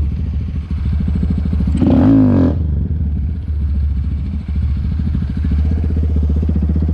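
Honda Grom's single-cylinder engine running steadily, with one short rev that rises and falls about two seconds in.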